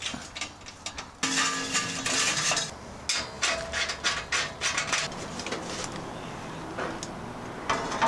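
Stainless-steel parts of a propane patio heater being screwed and fitted back together: a screwdriver turning screws, with metal clicks, clinks and knocks as the housing and screen are handled, some with a short metallic ring.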